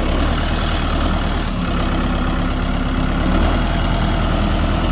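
Tractor engine running steadily at low throttle as the tractor drives slowly, picking up in level right at the start.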